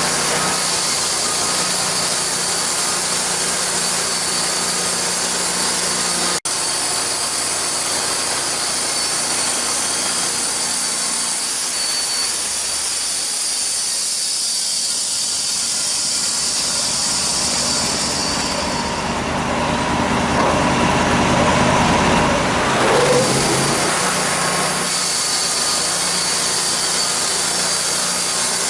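Homemade sawmill running steadily under load, its engine and blade cutting through a log, with a high ringing whine. The sound changes for a few seconds about two-thirds of the way in: the high whine drops away and the lower running noise grows.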